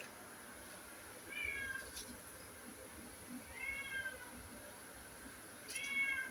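A cat meowing three times, each call under a second long and slightly arching in pitch.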